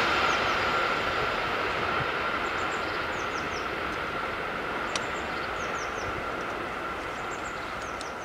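Passing train receding from a level crossing, its rolling noise fading steadily away.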